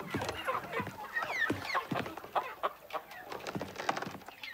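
Hens clucking: a busy run of short clucks and squawks, several a second.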